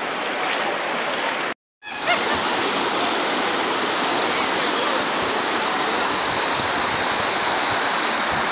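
Muddy floodwater rushing and pouring over a raised road divider in a steady torrent. The sound drops out to silence for a moment about a second and a half in, then the rushing resumes unchanged.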